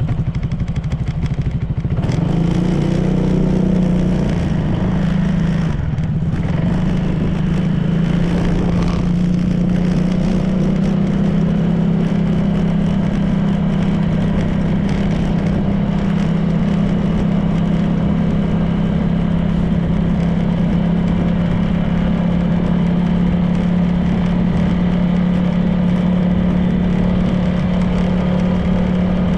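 Honda PCX 160 scooter's single-cylinder engine and drive, with wind and road noise, running at speed. It gets suddenly louder right at the start, wavers briefly a few seconds in, then holds a steady note.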